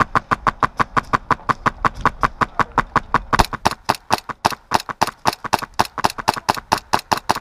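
Airsoft gun firing a long, steady string of sharp shots, about six a second, without a break.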